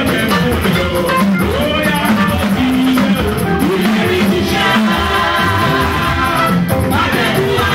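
Live band music with drum kit, guitar and singing, a steady beat.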